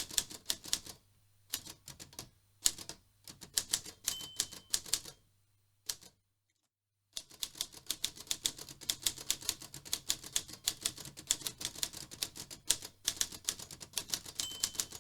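Typewriter keys being struck in fast runs of typing, with short pauses about a second in and around two and five seconds in, a full stop for about a second near the middle, then steady unbroken typing.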